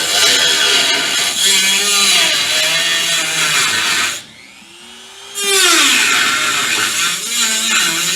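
Dremel-type high-speed rotary tool cutting into the truck's sheet-metal cab, its whine wavering in pitch as it bites. It stops about four seconds in and starts again about a second later.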